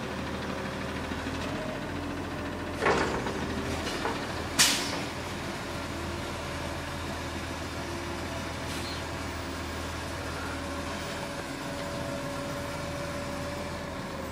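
Front-loader garbage truck's engine running while its lifting arms empty a container over the cab: two sharp bangs about 3 and 4.5 seconds in as the container knocks at the top of the lift, then a steady whine in the last few seconds as the arms come down and the truck moves off.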